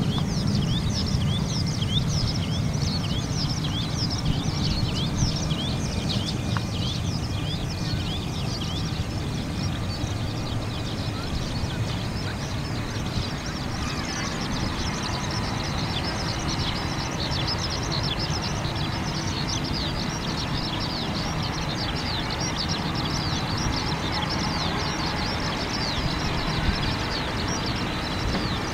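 Boeing 767 jet engines at taxi idle, heard across the airfield as a steady low rumble that fills out about halfway through. Over it comes a dense chorus of small, rapid chirping calls.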